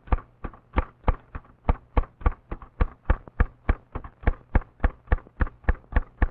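Manual typewriter keys striking in an even rhythm, about three clacks a second.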